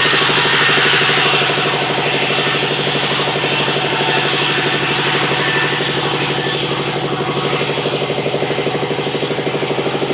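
Sawmill machinery running with a steady, pulsing engine drone. About two-thirds of the way in the hissy upper part of the sound drops away and it gets a little quieter.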